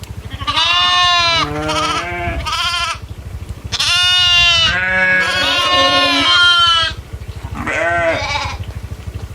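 Goats bleating: three loud, wavering calls, the middle one the longest. A steady low hum runs underneath.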